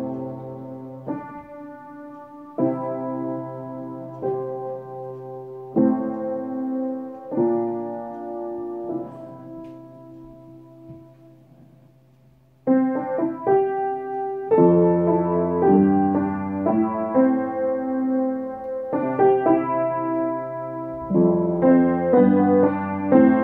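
Background piano music, a run of chords. It fades gradually to a quiet passage, then comes back in fuller and louder about halfway through.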